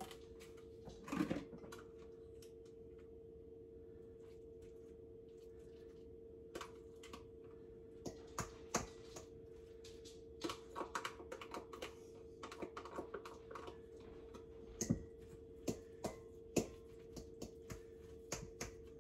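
Scattered light clicks and taps of a utensil against a plastic butter tub and a stainless steel mixing bowl as plant butter is scooped in, sparse at first and more frequent from about six seconds in, over a faint steady hum.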